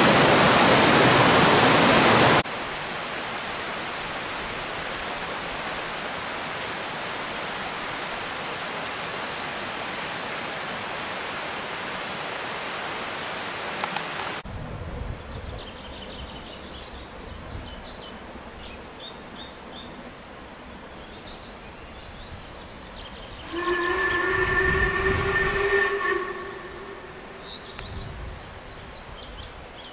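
A mountain stream rushes over rocks, loud at first and then quieter, with birds chirping. About 23 seconds in, a narrow-gauge steam locomotive's whistle sounds once, a long blast of about two and a half seconds, from the Talyllyn Railway line.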